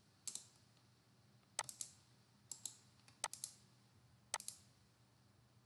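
Faint computer mouse clicks, five quick groups of two or three sharp clicks each, spread about a second apart.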